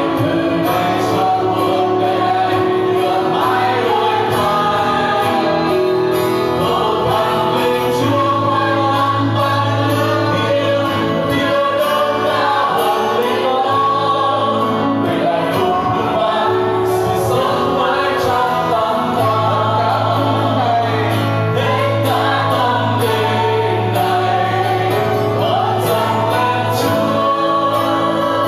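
A congregation singing a Vietnamese worship song together, led by singers on microphones, with acoustic guitar and a sustained low bass line underneath.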